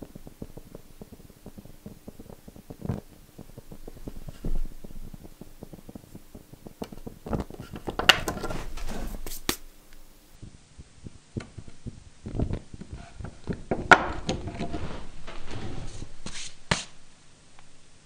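Small metal clicks and knocks of a brass wick lighter being capped and set down on a wooden workbench, in two busy spells.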